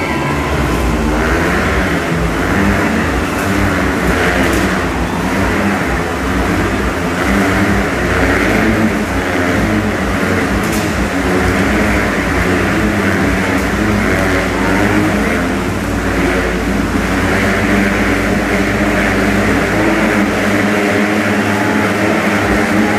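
Motorcycles riding laps inside a steel-mesh globe of death, their engines revving continuously with a wavering, rising and falling pitch.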